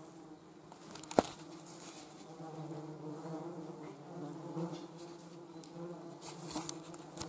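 A flying insect buzzing steadily with a low hum. A single sharp knock about a second in.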